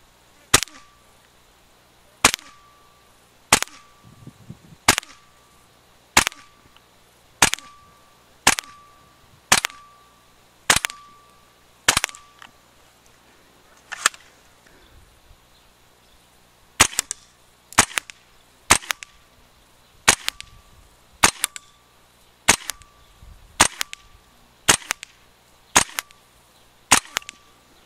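WE SMG-8 gas blowback airsoft rifle running on propane, fired in single shots about one a second, each a sharp crack with a brief ring after it. There is a short pause about halfway through before the shots resume.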